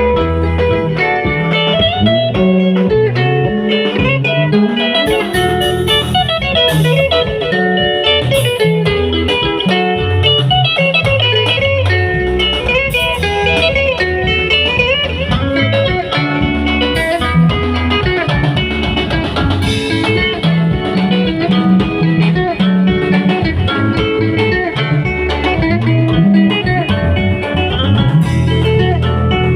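Music: an electric guitar playing a blues-style line with bent notes over bass guitar, steady and loud.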